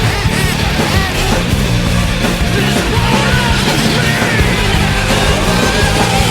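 Loud punk-rock music with distorted guitars, drums and shouted vocals.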